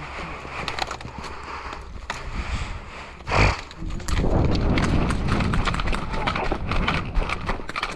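Rapid, irregular footfalls and clattering gear from a player moving over the ground. About three and a half seconds in there is a loud thump, and from about four seconds on the steps and rattling get louder, with a rough rumble of wind or rubbing on the microphone.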